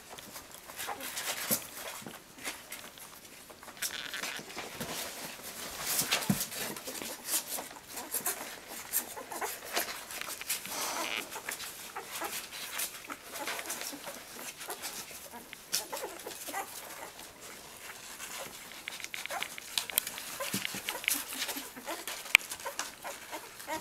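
A litter of two-week-old puppies squeaking and whimpering in short, scattered cries as they jostle to nurse, with small rustling scuffles among them.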